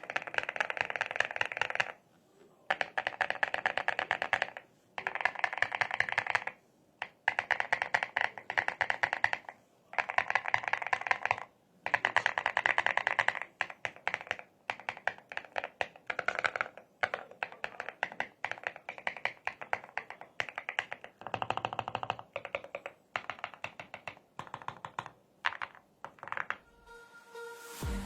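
Fast typing on the ROG Night Magic EXTREME SE mechanical keyboard: dense runs of key clicks in bursts of one to two seconds with short pauses between, the keystrokes ringing slightly.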